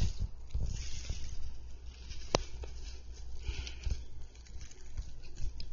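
Handling noise from a handheld camera being panned outdoors: a low rumble with scattered soft knocks, and one sharp click about two and a half seconds in.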